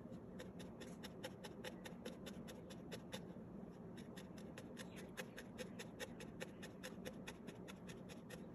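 Felting needle jabbing in and out of a ball of wool roving: a faint, quick run of soft ticks, about four or five a second.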